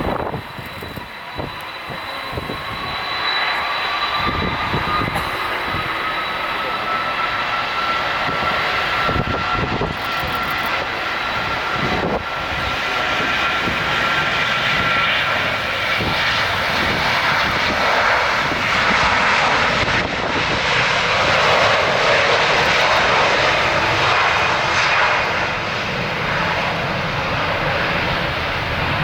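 Boeing 747-400 freighter's jet engines. A whine rises in pitch as the noise builds over the first few seconds, then settles into a steady loud roar with a high whine on top.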